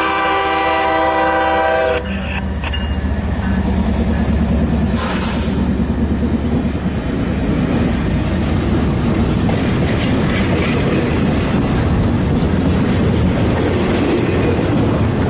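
Norfolk Southern diesel locomotive horn sounding a chord of several notes that cuts off suddenly about two seconds in, as the locomotives pass. Then the steady rumble and clickety-clack of double-stack intermodal well cars rolling by.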